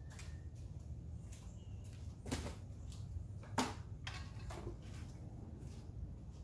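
A few sharp knocks and clunks of objects being handled and set down, over a steady low rumble.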